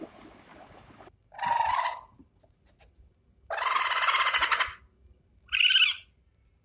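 Farm fowl calling three times: a short call, then a longer rattling call of about a second, then a brief higher call near the end.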